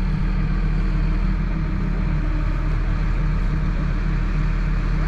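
Boom-truck crane's engine running steadily as it holds a lattice windmill tower on its hook.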